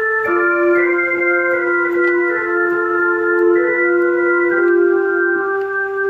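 Freshly restored Hammond C-3 tonewheel organ played through a Leslie 147 speaker: held chords that move to new notes several times.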